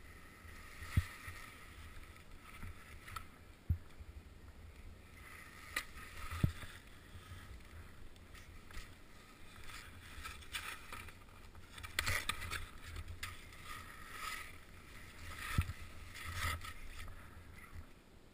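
Skis scraping and sliding slowly through snow, with a low wind rumble on the camera's microphone and several sharp knocks spread through.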